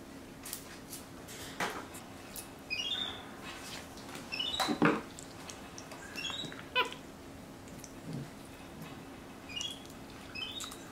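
Capuchin monkey giving short high chirps, each a quick run of falling notes, about half a dozen times. Between them come clicks and smacks from slime being handled, and there is one louder thump about five seconds in.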